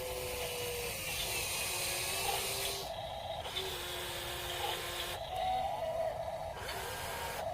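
Electric motors of a 1:16-scale radio-controlled excavator whining over a steady hiss, their pitch stepping up and down and cutting in and out every second or two as different movements start and stop.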